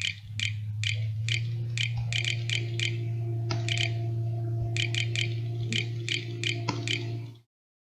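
Laptop keyboard being typed on, irregular key clicks a few per second, over a steady low electrical hum that cuts off abruptly near the end.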